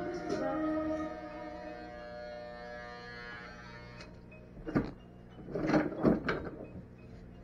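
Music with long held notes that fade away over the first few seconds, then a few short knocks and clatter of objects being handled about two thirds of the way through.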